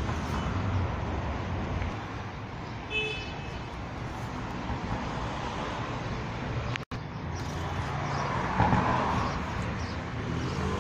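Steady outdoor background rumble like road traffic, with a short high-pitched tone about three seconds in. The sound cuts out for an instant just under seven seconds in.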